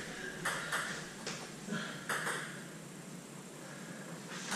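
Table tennis ball clicking off the rackets and the table in a rally: five or six sharp clicks in the first half, then a quieter stretch.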